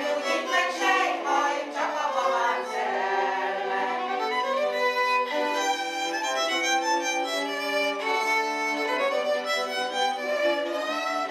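A women's Palóc folk song group singing together, accompanied by a violin.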